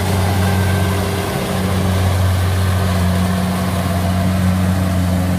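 Kubota DC70 rice combine harvester's diesel engine running steadily under load as it cuts and threshes rice, a loud constant low drone with no change in pitch.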